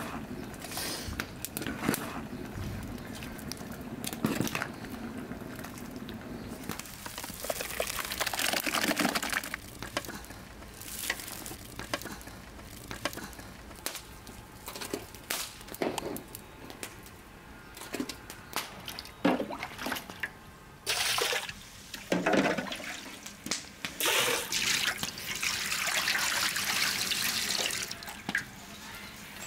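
Hot persimmon juice and mash scooped with a metal mug and poured, splashing into metal basins, with two longer pours, one about a third of the way in and one near the end. Clinks and knocks of metal on metal come between the pours.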